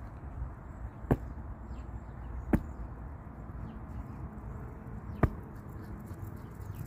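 Three sharp clicks, about one, two and a half, and five seconds in, over a steady low rumble.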